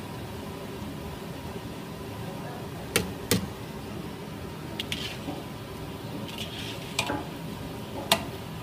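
Bread cubes deep-frying in hot oil in an iron kadai, a steady sizzle, with a metal slotted spoon striking the pan in four sharp clinks: two about three seconds in, one about seven seconds in and one near the end.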